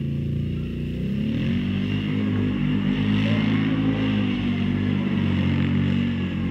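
BRP (Can-Am) Renegade 800 ATV's V-twin engine revving up about a second in and held at high revs while the quad is ridden hard, then easing off near the end.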